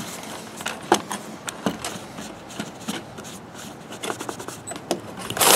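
Oily rag rubbing along the steel blade of a 100-foot tape measure as it is wiped clean, with scattered small clicks and a brief louder rustle near the end.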